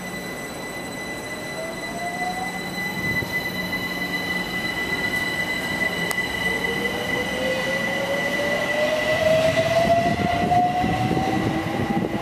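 London Overground Class 378 electric multiple unit pulling away, its traction motors whining steadily upward in pitch as it gathers speed. A steady high tone runs alongside, and wheel and rail noise grows louder toward the end.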